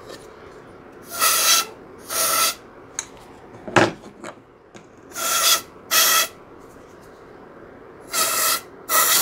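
Aerosol can of Stoner urethane mold release sprayed into the end of a PVC pipe in short hisses, three pairs of bursts about half a second each, each hiss carrying a faint tone. A single knock about four seconds in.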